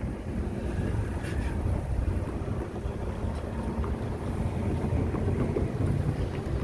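Wind buffeting the microphone in a steady low rumble, with cars and a pickup truck driving over the grade crossing.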